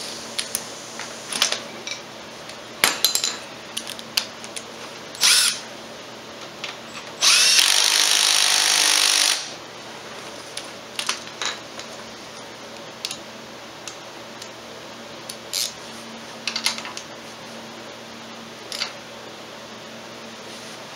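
A handheld power drill runs in one burst of about two seconds, a third of the way in. Around it are scattered clinks and knocks of metal tools and parts being handled.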